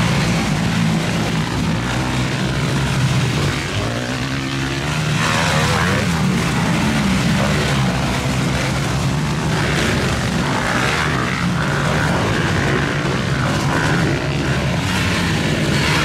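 Several motocross bikes' engines running and revving hard, overlapping into a continuous drone with pitch rising and falling as the riders climb the hill.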